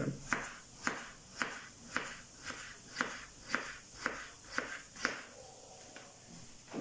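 Kitchen knife slicing a peeled potato into thin half-moons on a bamboo cutting board: about ten knocks of the blade against the board, roughly two a second, stopping about five seconds in.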